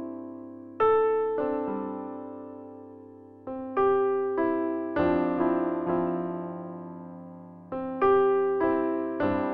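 Background music: slow, sparse electric piano notes and chords, each struck and left to fade.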